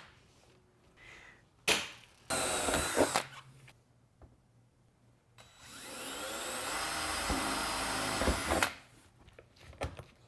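Cordless drill boring holes through sheet-steel roof trim for pop rivets: two short runs about two and three seconds in, then a longer run of about three seconds that cuts off sharply. A few sharp clicks near the end come from a hand pop riveter.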